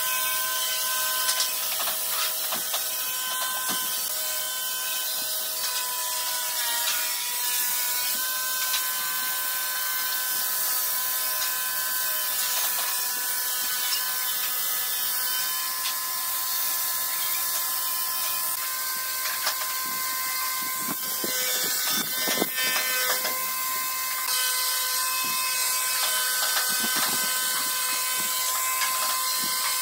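Electric angle grinder fitted with a sanding drum, running with a steady whine as it sands the curved inside edges of a pine board. Its pitch shifts slightly a few times as it is pressed into the wood.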